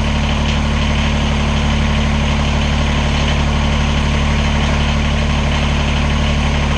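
Kubota BX23S compact tractor's three-cylinder diesel engine idling steadily, loud and unchanging.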